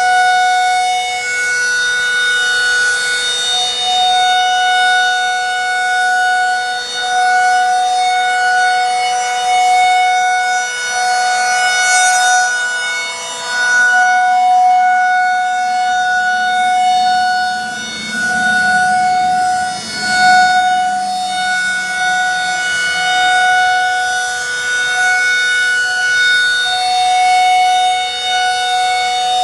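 Federal Signal 2001-SRN rotating outdoor warning siren sounding its full-alert tone, one steady pitch whose loudness swells and dips unevenly as the badly wobbling rotator swings the horn around. A lower sound briefly swells and fades about two-thirds of the way through.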